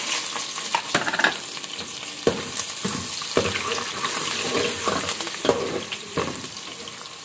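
Chopped red onions sizzling in hot oil in a metal pot. They are stirred with a steel spoon that knocks and scrapes against the pot every second or so, and the sizzle slowly eases toward the end.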